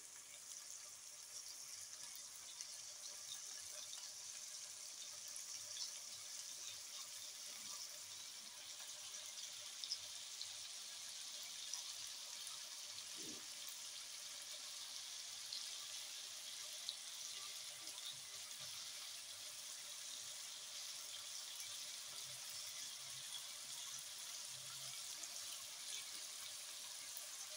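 Boneless chicken pieces frying in a little oil in a karahi: a faint, steady high sizzle, with a few soft clicks.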